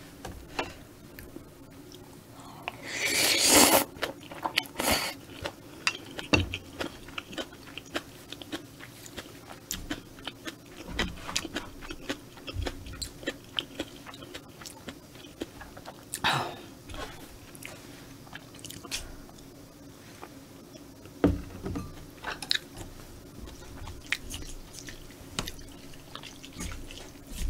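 Close-miked eating of stir-fried squid and noodles: a loud slurp of noodles a few seconds in, a shorter one about halfway, and between them steady chewing with many small wet mouth clicks.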